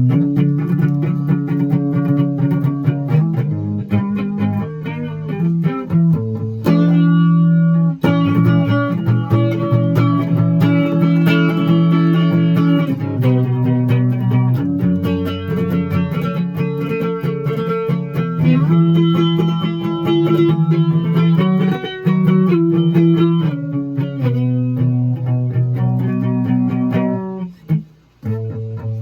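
Instrumental music played on plucked strings over a low bass line; it drops out briefly near the end.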